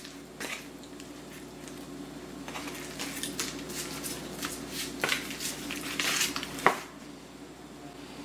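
Raw chicken pieces being turned over by hand on a dish: soft handling noises and scattered light knocks against the dish, with a sharper knock near the end, over a steady low hum.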